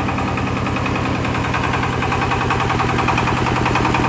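Engine driving a MAKTANI MT212 rice milling machine, running steadily with an even, rapid beat.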